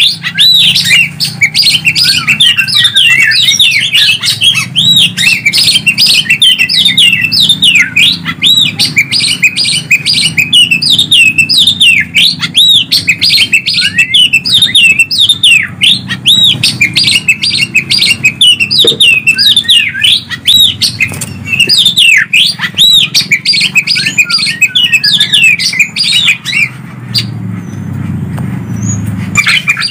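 Recorded song of a greater green leafbird (cucak ijo) and an oriental magpie-robin (kacer): fast, continuous chirps and whistles sweeping up and down, with a short lull near the end. It is a masteran track played to caged songbirds to stir them into singing.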